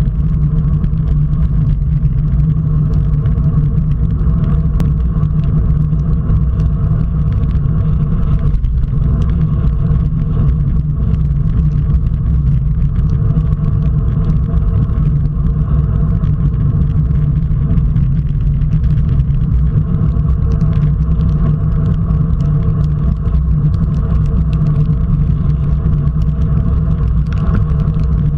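Steady, loud low rumble of wind buffeting a bike-mounted camera's microphone at about 40 km/h, mixed with tyre and road noise from a road bike on wet tarmac.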